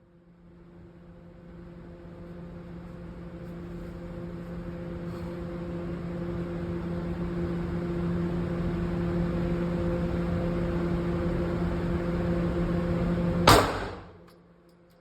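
Motorized shooting-range target carrier running along its track, a steady motor hum that grows louder for about 13 seconds and then stops with one loud clunk.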